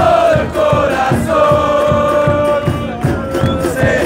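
A large crowd of football supporters singing a terrace chant together in long held notes, over a low drum beating about three times a second.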